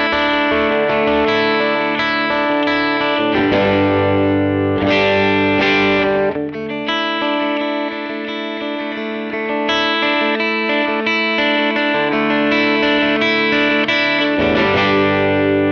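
Telecaster with Busch Arctic Wolf Alnico 5 bridge and neck pickups played through a Muleskinner amp with a One Control Honey Bee overdrive, a twangy, lightly driven electric guitar tone. Full chords ring out, a quieter, lighter passage comes in the middle, then full chords return.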